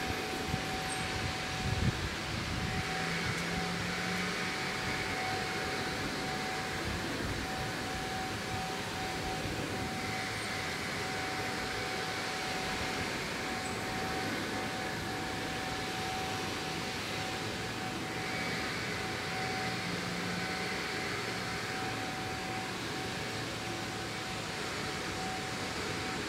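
Steady background hum and hiss with a thin, steady high whine; no distinct events.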